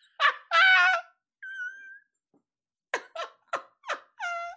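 A man laughing hysterically in high-pitched squeals, broken by a quick run of short gasping bursts and ending on another squeal.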